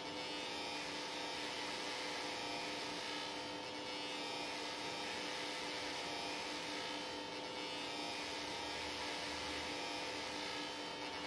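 Steady electrical hum, three held tones over an even hiss, unchanging throughout.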